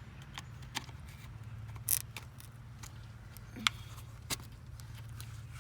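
Plastic wiring connector being handled and pushed onto a new neutral safety switch: a handful of sharp clicks and knocks, two louder ones about two and three and a half seconds in, over a steady low hum.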